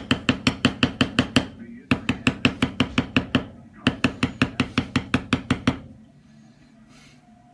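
Mallet rapidly striking a metal leather-stamping tool to tool leather, about six blows a second in three runs with brief pauses, stopping about six seconds in.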